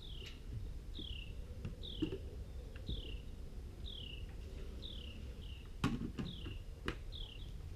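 A small bird repeating a short, high, falling chirp about once a second, over a few faint knocks.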